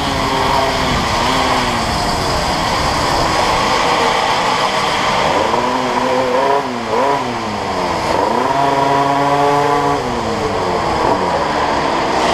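Go-kart engine running under the driver's seat, revving up and down through the corners so its pitch keeps rising and falling, then settling lower near the end as the kart slows into the pits.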